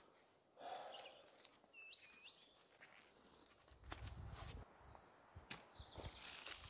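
Faint outdoor quiet with a few small birds chirping: short up-and-down calls, then several quick falling whistles. Soft clicks and knocks from a lightweight folding camp chair being assembled sound among them, with a low rumble about four seconds in.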